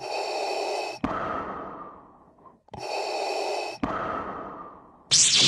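Darth Vader's mechanical respirator breathing sound effect: two slow hissing inhale-and-exhale cycles. Near the end, a loud rising sweep brings in the funk music track.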